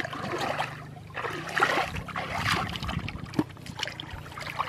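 Shallow muddy water splashing and sloshing in irregular bursts, stirred by a person wading and groping in it with bare hands.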